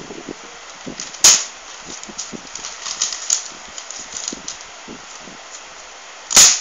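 A ruler swung hard against a held sheet of paper to chop it: two sharp smacks, one about a second in and one near the end, with light paper rustling and crinkling between.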